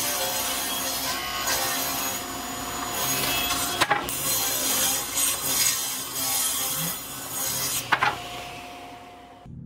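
Table saw running and ripping a hardwood board lengthwise, a steady blade whine with the rasp of the cut. Two sharp knocks, about four and eight seconds in; the sound fades near the end.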